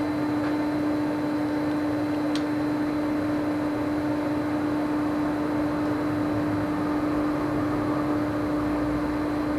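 Steady mechanical hum at one low pitch over a background hiss, unchanging throughout, typical of a running fan or similar shop machine.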